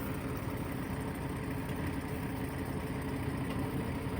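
Engine running steadily at idle, an even hum that holds without change.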